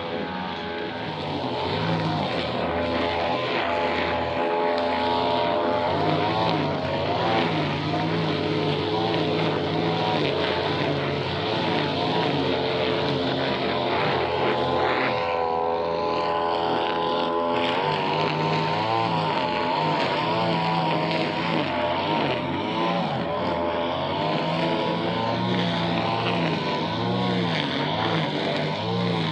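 Small two-stroke brush cutter (grass-cutting machine) engine running steadily, its engine note wavering up and down in the middle as the throttle varies.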